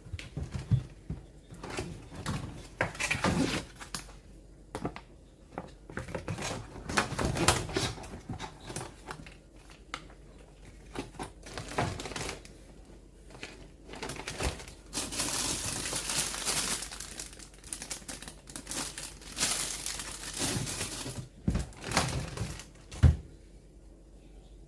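Crinkling and rustling of plastic packaging, broken by scattered light clicks and knocks of items being handled, with a longer rustle about two-thirds of the way through and a sharper knock near the end.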